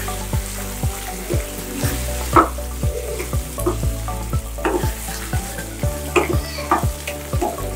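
A spatula stirring cauliflower and potato curry in a nonstick pan, scraping and knocking against the pan about two or three times a second. Under it the tomato-masala gravy sizzles as the half-boiled vegetables finish cooking.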